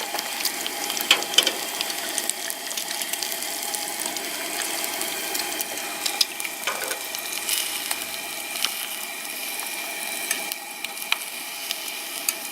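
Pike pieces frying in bacon grease in a pan: a steady sizzle with many small crackles and pops.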